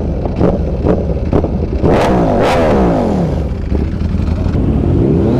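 Sport motorcycle engines revving hard on a ride, with a run of sharp bursts about half a second apart. About two to three seconds in, the engine pitch falls away.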